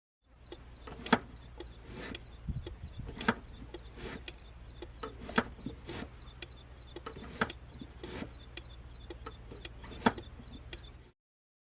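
Car pedals being pumped: irregular clicks and knocks, a few of them sharper, over a steady low hum.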